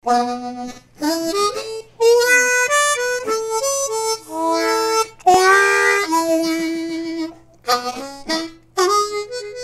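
Harmonica played in short phrases of held notes and chords, with a few bent notes that slide in pitch and brief breaths between the phrases.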